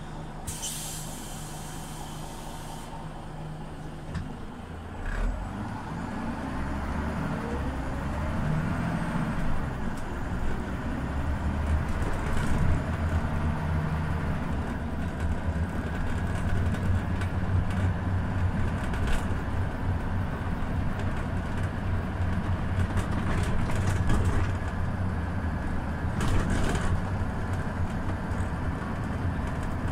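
Scania OmniLink CL94UB city bus: a short hiss of air near the start, a thump about five seconds in, then the engine pulling away, rising in pitch and running on under load.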